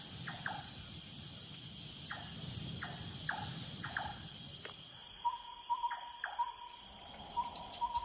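Dusk forest ambience of crickets and other insects trilling steadily, with short falling chirps every half second or so in the first half. About five seconds in, a low rumble drops away and a string of quick, evenly pitched pips starts.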